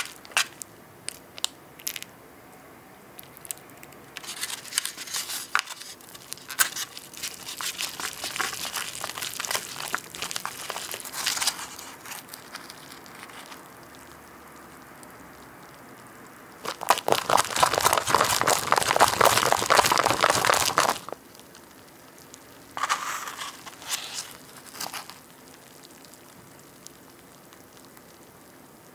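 Wooden chopsticks stirring and lifting sticky natto in its tray, making wet, sticky clicks as the chopsticks knock against the tray. The clicks come in bursts, with the longest and loudest run about two-thirds of the way in.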